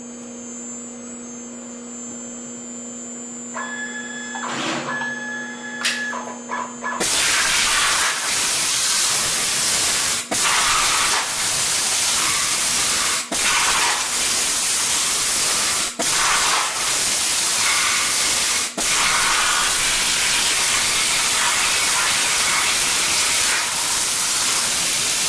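CNC plasma cutting table running, with a steady machine hum and a few short electronic tones at first. About seven seconds in, the plasma torch fires into a loud, steady hiss that cuts out briefly about every three seconds and resumes.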